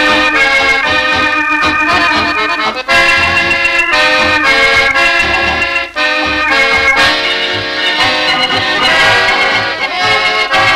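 Instrumental music played back from an old Columbia record pressed for radio stations: a small trio playing a lively tune in held chords that change every second or so.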